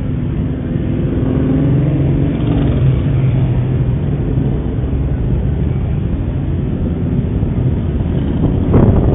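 Several motorcycle engines running at low speed as bikes ride past in a procession, a steady low rumble that grows louder near the end. Heard through a security camera's microphone, which cuts off the higher sounds.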